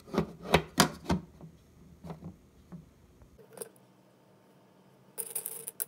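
Dry cat kibble clicking against a clear plastic bowl as a hand picks through it: four sharp clicks in the first second or so, lighter ones after, and a short rattle near the end.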